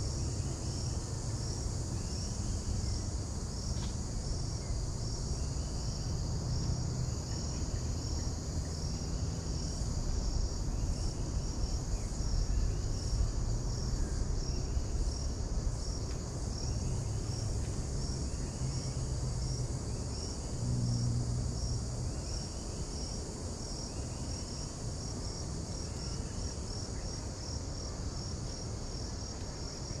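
Insects in the bush making a steady high buzz with a regular pulse that quickens toward the end, and a softer repeated chirp about once a second. A low rumble runs underneath.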